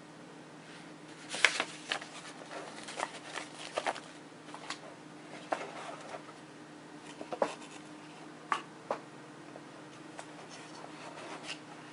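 Hands handling a paper manual and a cardboard box with a foam insert: scattered rustles, taps and scrapes, the loudest about a second and a half in. A steady low hum runs underneath.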